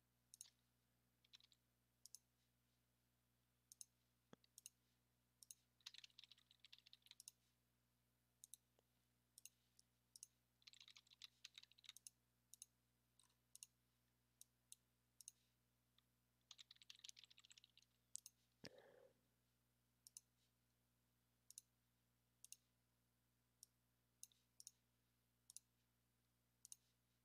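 Near silence with faint, scattered computer mouse clicks, and three short stretches of soft rustling about 6, 11 and 17 seconds in.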